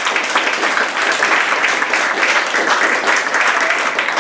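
Audience applauding: a dense, steady patter of many hands clapping at once.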